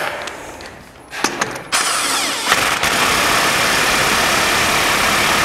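Cordless impact wrench tightening a clutch bolt on a crankshaft: a few short bursts about a second in, then steady hammering from about two seconds in, driving the bolt to around 96 foot-pounds of torque.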